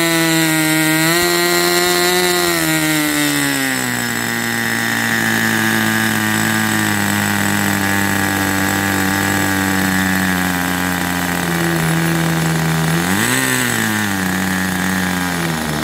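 Irvine 40 Mk III two-stroke glow engine running at full speed with its propeller spinning: a loud buzzing note that drops in pitch about three seconds in, sags slowly, then briefly rises and falls again near the end.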